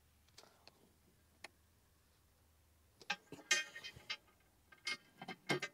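Light metal clinks and clanks from a steel trailer tailgate being fitted into place. The clanks start about three seconds in, one ringing briefly.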